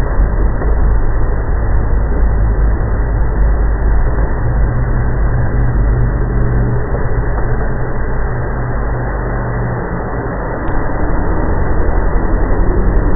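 Loud, low rumbling drone of the unexplained 'strange sound in the sky' kind, with a steady low hum rising out of it in the middle. The drone eases off about ten seconds in, then swells again near the end.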